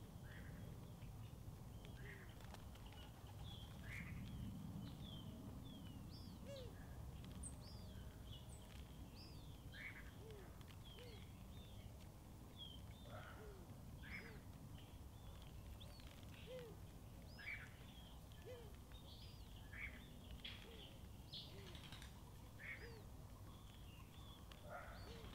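Garden birds chirping and calling: many short, separate chirps scattered throughout, faint, over a low steady rumble.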